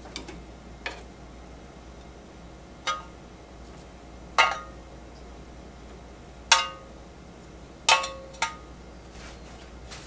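Metal kitchen tongs and a frying pan clinking while food is plated: about six sharp, separate clinks, each with a short metallic ring, spaced a second or two apart.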